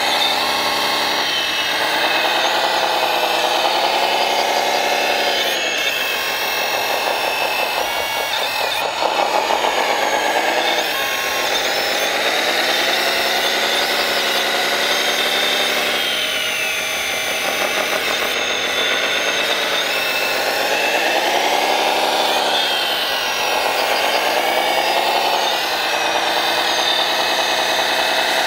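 Motor whine of a 1:14 scale RC construction model, its pitch rising and falling smoothly every few seconds as the throttle changes, over a steady high whine.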